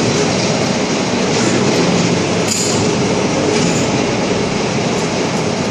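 Loud, steady din of heavy machinery running in a fabrication workshop, a continuous rumbling, hissing noise, with one short sharp click about two and a half seconds in.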